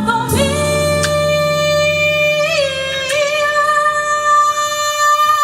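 Live stage show: a female vocalist holds one long high note over a sustained band chord. The chord drops out shortly before the end, and she then releases the note with a falling slide.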